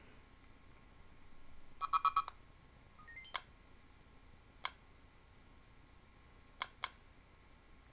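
Windows CE system sounds from the Nextar W3G GPS unit's small speaker: a quick run of about four electronic beeps about two seconds in, then a short rising string of little tones ending in a click, then touchscreen tap clicks, the last two close together as a double tap.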